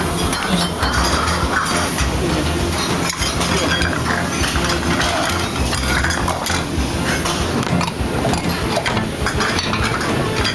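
Ceramic plates and bowls clinking and clattering as they are quickly stacked by hand, many small knocks over a steady background rumble of a working kitchen.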